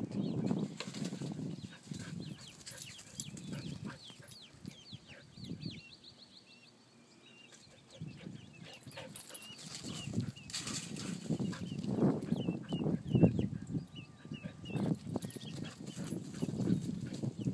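Baby Ameraucana chicks peeping: many short, high chirps in quick runs. Under them run low rustling and thumps, louder in the second half, with a quieter lull about a third of the way through.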